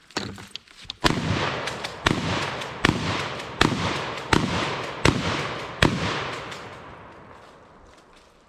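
A 12-gauge open-bore shotgun fired seven times in quick succession, about three quarters of a second apart, each shot trailing off in a decaying echo that fades out after the last.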